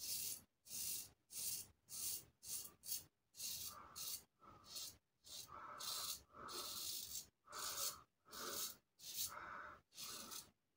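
Parker Variant adjustable safety razor with a Sputnik blade scraping through lathered stubble in short strokes, about two a second, on the first pass of a wet shave.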